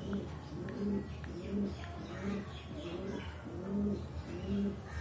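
A bird calling in low, repeated notes, about one and a half a second.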